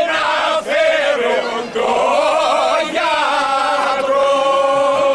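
A group of mainly male voices sings a traditional Greek folk dance song unaccompanied and in unison, in long held notes.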